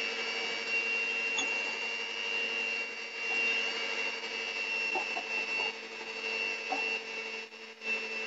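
Electric hand mixer running steadily with a motor whine, its beaters whisking pancake batter in a glass bowl. The sound dips briefly near the end.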